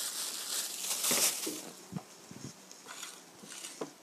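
A plastic bag crinkling for about the first second and a half, then a few light knocks as things are picked up and set down on a table.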